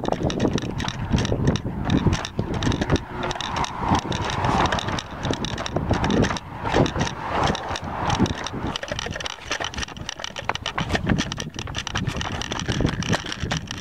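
Handling noise from a handheld camera on a homemade stabilizer as it is carried along: irregular knocks and clicks over a low rumble of wind on the microphone.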